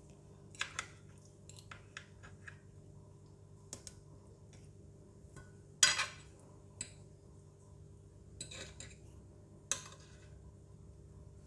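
Metal spoon and fork clinking and scraping against a ceramic plate while breaking into a grilled mackerel fillet: a dozen or so light, scattered taps, the loudest about six seconds in.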